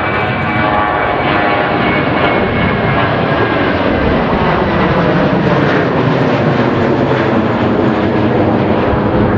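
Etihad Airbus A320-family jet's twin turbofan engines at takeoff thrust as it climbs out after departure: a loud, steady roar with a faint whine of fan tones in it.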